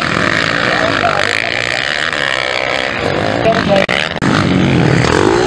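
Motocross dirt bike engines revving, the pitch rising and falling as the riders work the throttle. The sound breaks off briefly about four seconds in.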